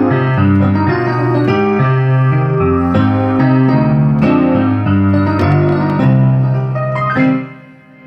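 Instrumental keyboard music with a piano-like sound: a melody over chords that ends on a final chord, which dies away about seven seconds in.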